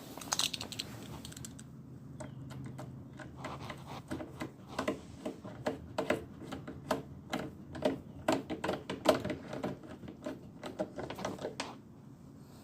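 Irregular light clicks and knocks, several a second, from tools and small metal and plastic parts being handled.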